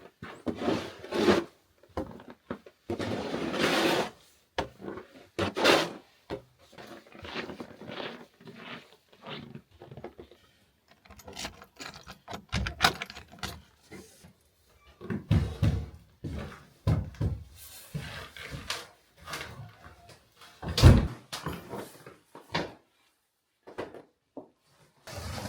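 Irregular knocks, clicks and rustles of someone moving about and handling things, with several heavy thuds in the second half, the loudest about 21 seconds in.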